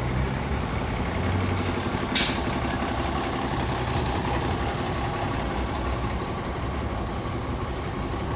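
Orion V diesel transit bus engine running steadily, with one short, sharp hiss of the air brakes about two seconds in.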